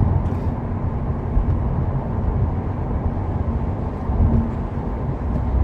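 Inside the cabin of a 2015 Subaru WRX driving on wet roads: a steady low rumble of engine and tyres at an even speed, with no acceleration.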